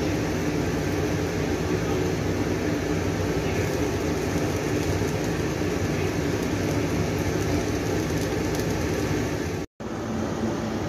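Steady, even rushing noise like a running fan, broken by a split-second dropout near the end.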